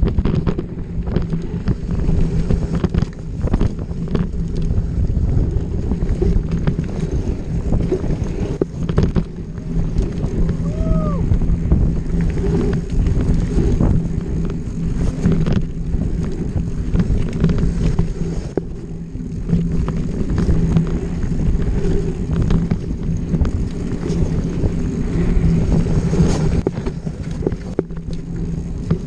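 Off-road motorcycle engine running steadily while riding a trail, with wind buffeting the microphone.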